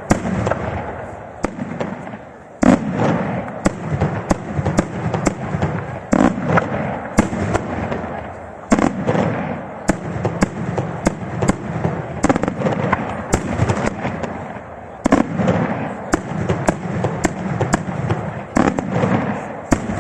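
Daytime aerial fireworks show: shells burst in a rapid, continuous barrage of sharp bangs, several a second at times. Their echoes run together into a constant rumble.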